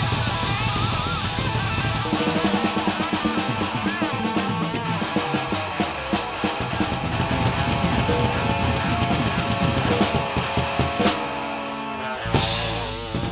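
Rock band playing live: drum kit with bass drum and cymbals driving a steady beat under electric guitar. Near the end the song closes on a final hit that is left ringing.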